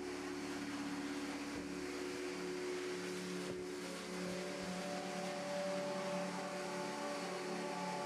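Pet grooming blower (high-velocity dog dryer) running steadily through its hose, blowing air into a thick coat: a steady motor hum with several tones over an even rush of air. Some of the tones shift slightly about five seconds in.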